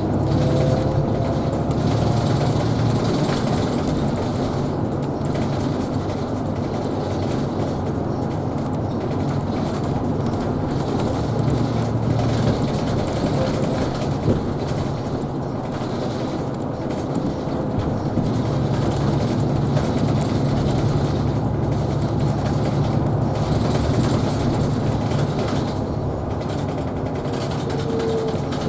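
Isuzu Erga Hybrid city bus driving along, heard from inside: a steady low drivetrain hum with road and tyre noise. A whine rises in pitch at the start and falls again near the end, as the bus speeds up and slows.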